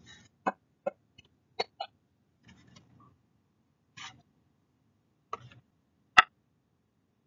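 About ten short, irregular clicks and taps with silence between them. The loudest, a sharp click, comes about six seconds in.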